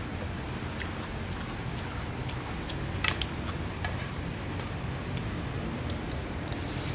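A metal spoon scraping and clicking against a nonstick frying pan while fried rice is stirred, with scattered clicks, the loudest about three seconds in, over a steady low hum.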